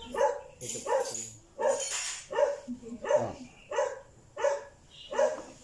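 A dog barking steadily, about eight barks evenly spaced a little under a second apart.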